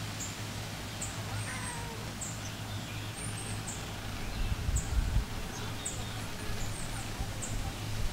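Outdoor ambience: a short, high chirp repeating about once a second, with faint bird calls and a steady low hum. A few low thumps come about halfway through.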